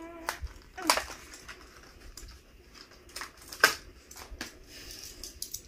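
A cardboard-and-plastic Hot Wheels blister pack being handled and opened, giving a few sharp clicks and crackles. The loudest comes about a second in and another near the middle.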